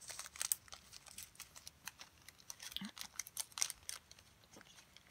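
Small plastic bags of square diamond-painting drills being handled and sorted, giving irregular light clicks and crinkles.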